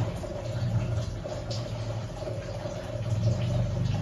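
Steady low mechanical hum, like a motor or engine running.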